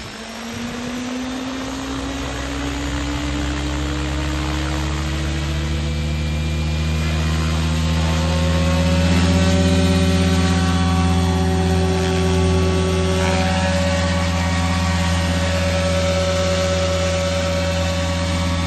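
SAB Goblin 570 electric RC helicopter, on a 6S battery, spooling up on the ground. The motor and rotor whine rise steadily in pitch for the first eight or nine seconds, then hold at a steady flying head speed.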